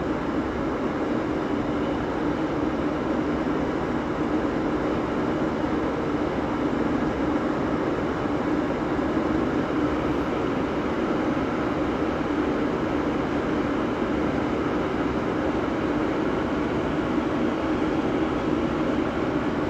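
Boat motor running with a steady, even drone, with no separate knocks or splashes standing out.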